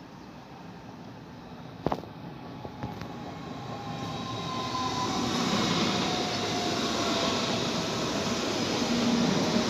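Red S-Bahn electric multiple unit pulling into the platform, growing louder from about four seconds in, with a whine that falls in pitch as the train slows. A sharp click about two seconds in.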